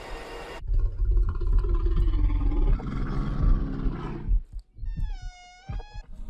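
A bear growls loudly and at length, a film sound effect of a bear closing in. About five seconds in comes a short high-pitched wavering cry.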